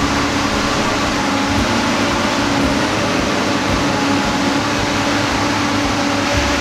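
Heavy logging machine's diesel engine running steadily: a constant drone with an even hiss over it.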